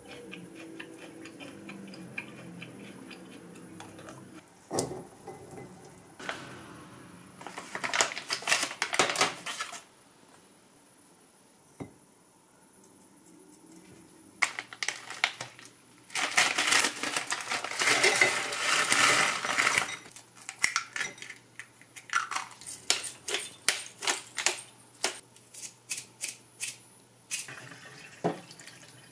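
Kitchen prep sounds: a wooden spoon stirring and scraping ingredients in a glass mixing bowl, in two noisy spells, the louder one about halfway through. These are followed by a run of sharp clicks and taps.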